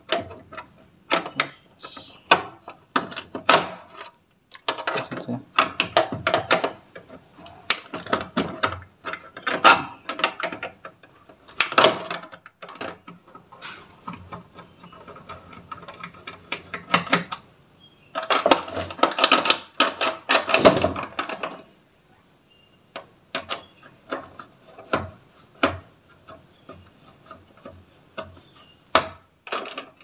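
Hand tools working on a washing machine's plastic top panel and door switch: pliers on the switch wires, then a screwdriver undoing the switch's screw, giving irregular clicks, taps and scraping, rubbing noise in bursts with short pauses.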